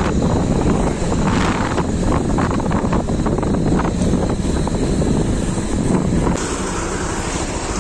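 Wind rushing over a phone's microphone on a moving Bajaj Pulsar motorcycle, with the bike's engine and road noise underneath. The sound eases slightly and changes character about six seconds in.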